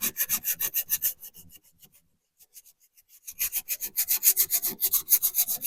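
Fine-grit sandpaper rubbed by hand back and forth over a rust spot on a car's steel wheel arch, about six quick strokes a second. The strokes stop for about two seconds midway, then start again.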